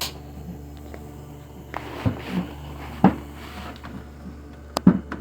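Plastic bumper trim and brackets being handled and fitted: a few sharp knocks spaced over several seconds, with some rubbing and scraping between them, over a steady low hum.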